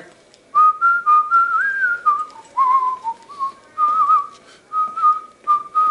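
A person whistling a short, wandering tune: a string of clear single notes stepping up and down, some with a small warble.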